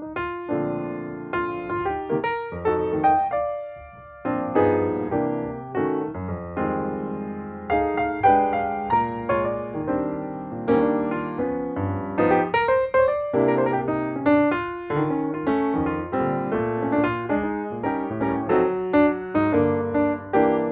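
Background piano music: notes struck one after another with chords under them, each note dying away, with a brief pause about four seconds in.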